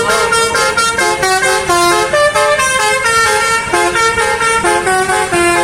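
Indonesian bus's basuri telolet horn playing a melody, its multi-tone notes stepping up and down several times a second.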